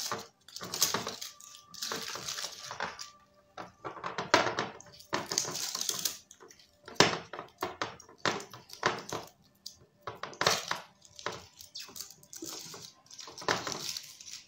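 Aluminium foil crinkling and rustling in irregular spurts as it is peeled off and folded around glass jars, with light clinks of the jars against the glass tabletop.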